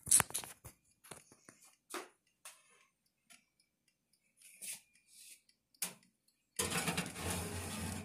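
Scattered light clicks and knocks of a cake pan and kitchen things being handled, a sharper knock at the start, then about a second and a half of scraping, rattling noise near the end.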